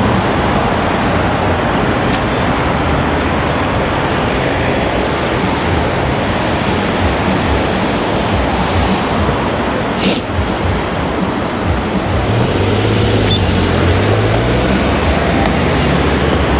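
Wind rushing over the microphone of a moving bicycle rider, mixed with road traffic noise; a motor vehicle's engine hums past about twelve seconds in.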